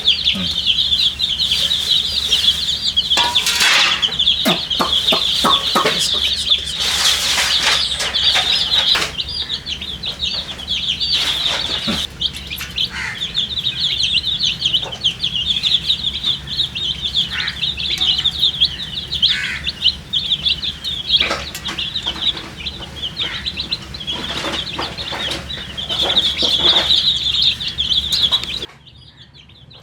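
A flock of baby chicks peeping continuously in a dense, high-pitched chorus, with scattered light taps and knocks among them. The sound drops off suddenly near the end.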